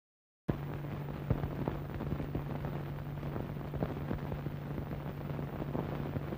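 Soundtrack noise of an old film running over its countdown leader: a steady low hum under hiss, with irregular crackles and pops. It cuts in suddenly about half a second in.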